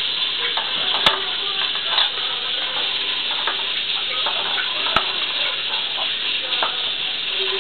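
A wooden spoon and a fork stirring and scraping in an aluminium pot of vegetable scraps, with small scattered clicks and two sharp knocks of utensil on pot, about a second in and again near five seconds. A steady hiss runs underneath.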